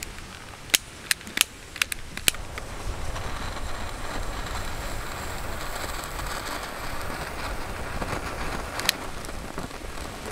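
Long-nosed lighter clicked several times in quick succession, then its flame hissing steadily for about six seconds as it lights the wooden wick of a jar candle, with one more sharp click near the end.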